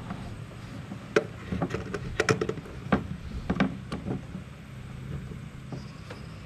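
Handling noise of electrical cable being worked and pushed through a wooden frame: a run of sharp clicks, taps and rustles between about one and four seconds in, over a steady low hum.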